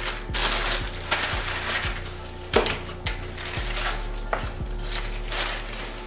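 Plastic packaging crinkling and rustling as a power cord in a plastic bag is handled and unwrapped, with scattered clicks and a sharp knock about two and a half seconds in.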